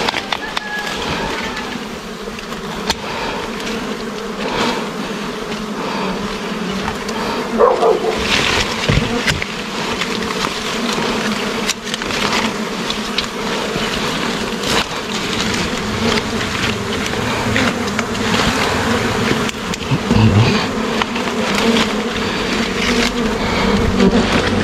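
A dense swarm of honeybees buzzing steadily around their exposed comb, close to the microphone. Brief knocks and rustles are scattered through the buzz.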